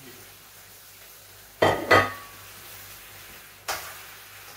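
A plate and a cooking utensil clattering against a frying pan as sliced mushrooms go into the pan: two sharp, ringing clinks close together about a second and a half in, then a single knock near the end.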